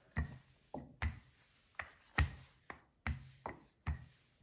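Wooden rolling pin rolling out a sheet of pastry dough on a silicone baking mat to thin it further: a run of short knocks, roughly two a second, as the pin is worked back and forth.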